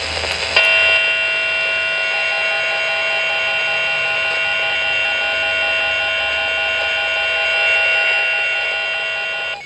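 Weather-radio emergency alert tone: a loud, steady electronic alarm tone held for about nine seconds, cutting off suddenly near the end. A brief burst of noise just before the tone starts.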